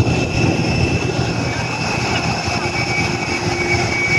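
Steady jet aircraft noise on an airport apron: a high, even whine held over a broad rumble.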